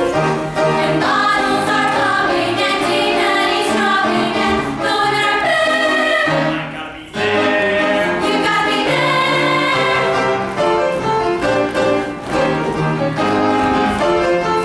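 Upbeat show-tune dance music from a stage musical's production number. It drops out briefly about seven seconds in, then comes straight back in.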